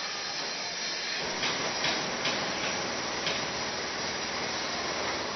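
Construction-site noise: a steady hiss with a low machine rumble that comes in about a second in. Several sharp metallic clanks sound between about one and a half and three and a half seconds in.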